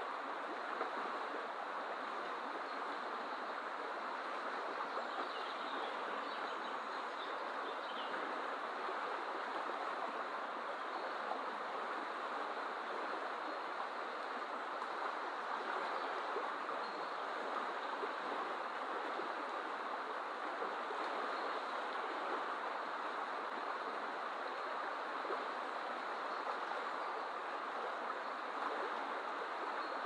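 Fast-flowing river rushing over broken white water: a steady, even wash of running water.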